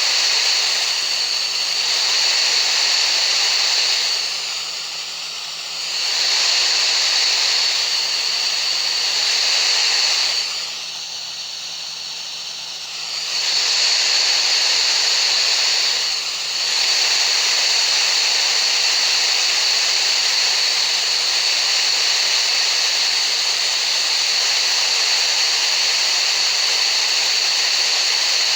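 Steady hiss of shaped noise with a high tone held steady through it, a tinnitus-masking sound. The hiss dips in level three times: for a couple of seconds a few seconds in, for about three seconds near the middle, and briefly soon after.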